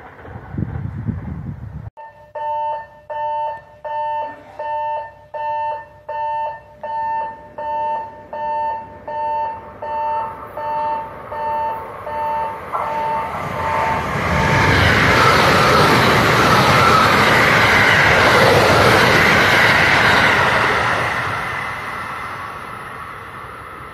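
A railway warning bell rings in an even two-note pulse, about three strikes every two seconds. Then a limited-express electric train passes through at speed with a loud rushing rumble that fades away near the end.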